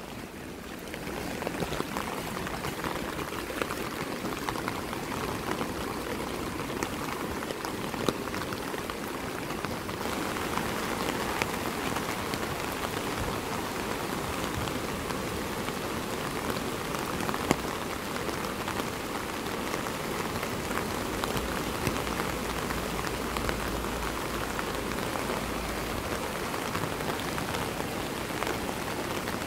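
Steady rain falling, a dense spread of small drop ticks over an even hiss, growing a little louder about a third of the way in.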